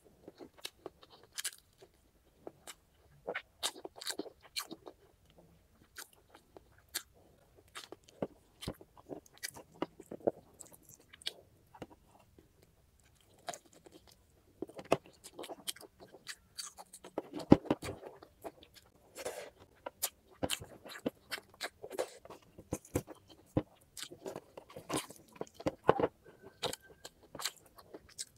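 Close-miked eating: biting and chewing grilled chicken and rice, heard as a stream of short, sharp mouth clicks and smacks, busiest in the second half.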